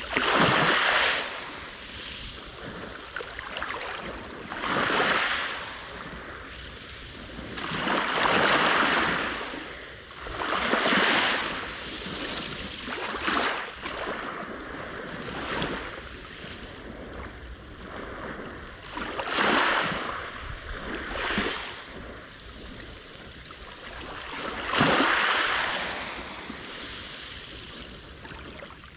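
Sea waves breaking on the shore, one swell of surf every two to four seconds, each rising and dying away over the steady wash of the sea.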